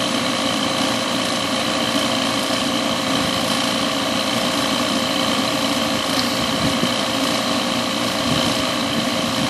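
Refrigerant recovery machine running steadily, its compressor pumping refrigerant into the recovery tank, an even hum with several constant tones.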